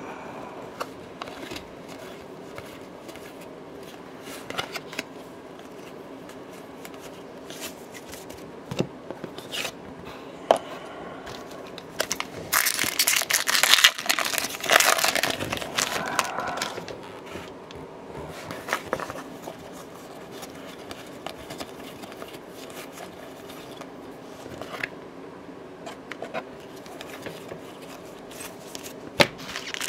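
Foil wrapper of a 2009 Topps Update & Highlights baseball card pack crinkling and tearing open, loudest from about twelve to sixteen seconds in. Before and after it come scattered soft clicks and flicks of cards being handled and flipped through, over a faint steady hum.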